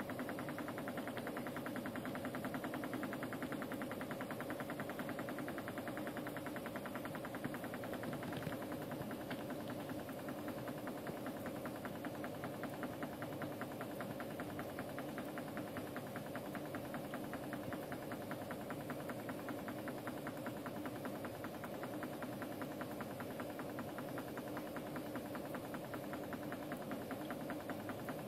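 Reptile misting system's pump running with a steady buzzing hum.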